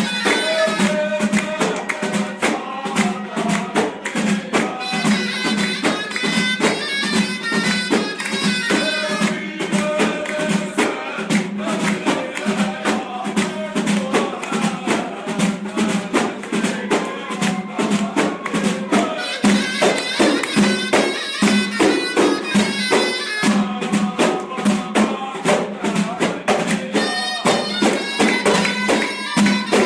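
Aissawa ritual music: a zorna, a double-reed shawm, plays a melody over several bendir frame drums beaten in a steady, driving rhythm.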